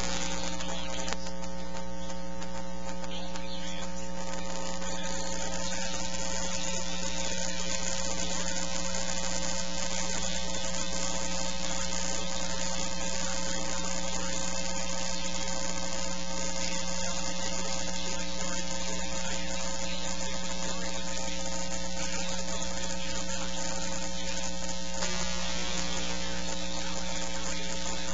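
Steady electrical buzzing hum, unchanging in pitch and level.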